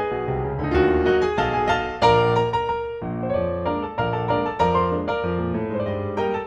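Background piano music with a steady rhythm of struck notes over a bass line.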